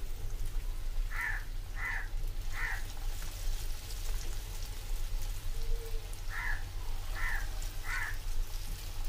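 Breaded potato drumsticks deep-frying in a pan of oil, a steady sizzle. Over it a crow caws three times about a second in, and three times again about six seconds in.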